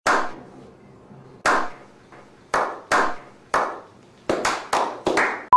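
A slow clap: sharp single hand claps, about a second and a half apart at first, speeding up into quicker claps near the end.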